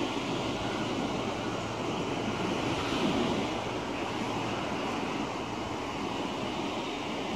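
Steady wind noise on a compact camera's foam-shielded built-in microphones, mixed with the wash of choppy harbour water.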